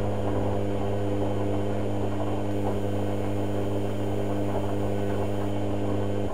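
Hotpoint Ultima WM72/76 washing machine's drum motor turning the drum on a boil wash: a steady hum with the wet load tumbling, which cuts off suddenly at the very end as the drum stops.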